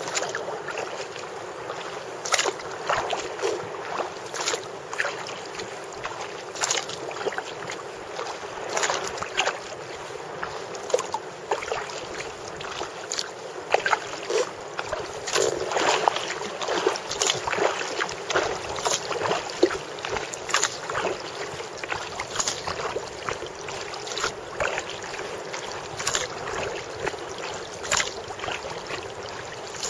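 Sea kayak paddle strokes dipping and splashing into calm water, a splash every second or so, over a steady wash of water along the hull.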